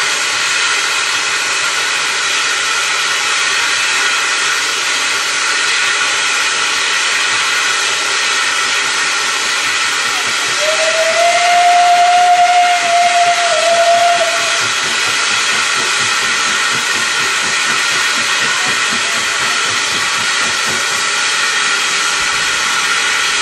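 Narrow-gauge steam locomotive's whistle: one blast of about four seconds at a steady pitch, starting about ten seconds in, with a brief dip near its end. A continuous loud hiss of steam runs under it.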